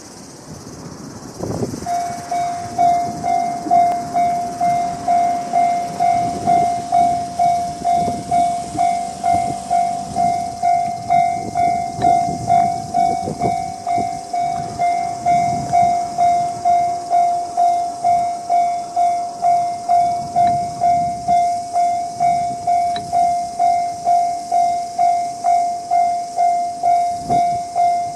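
Japanese railway level-crossing warning bell in the electronic JR standard tone, starting about two seconds in and ringing steadily at a little over two strokes a second.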